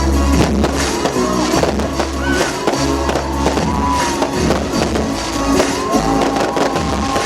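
Festival fireworks going off in repeated bangs and crackles over loud music with a heavy bass line.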